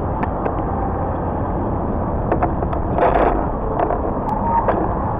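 Bicycle riding over city pavement, heard through a camera mounted on the bike: a steady low rumble with scattered rattles and knocks from bumps in the road, and a louder clatter about three seconds in.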